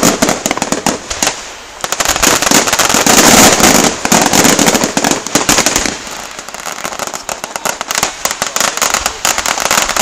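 Fireworks display: a loud, continuous barrage of aerial shell bangs and dense crackling, many reports a second with no pause, easing slightly in the second half.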